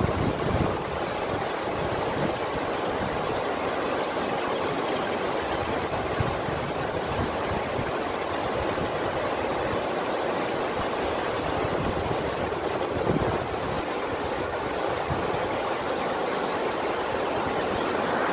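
Steady rush of moving water, even and unbroken, with a few brief low thumps.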